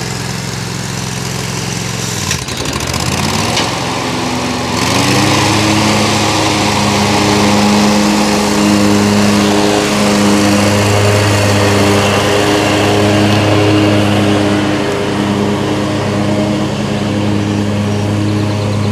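Stand-on zero-turn lawn mower engine running. About two seconds in the engine note dips and then climbs. From about five seconds it runs steadily, louder and at a higher pitch.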